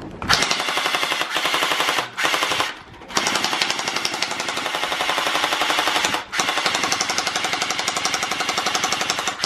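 Electric MP5 gel blaster firing full-auto: a rapid, steady rattle of shots in long bursts, broken by short pauses about two, three and six seconds in.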